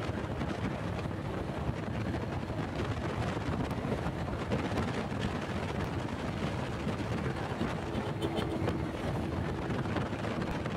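Wind rushing over the microphone of a moving motorcycle, with the small single-cylinder engine of a Honda Pop 100 running steadily underneath at cruising speed.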